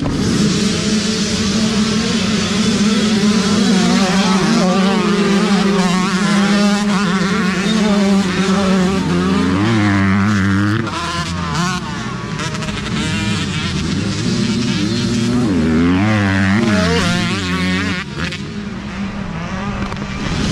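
A pack of youth dirt bike engines running and revving together as a row leaves the start. Two bikes pass close by, at about ten seconds and again around sixteen seconds, each with a rising then falling engine note.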